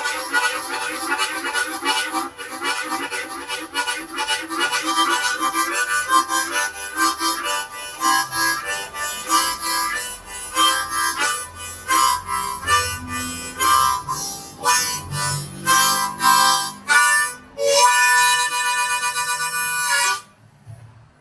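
Hohner Marine Band harmonica in C playing a train rhythm: chugging chords on the low holes, drawn and blown in turn with a 'tuku-taka' tongue articulation. The chugs slow down, as a train coming into the station, then one chord is held for about two seconds and cuts off.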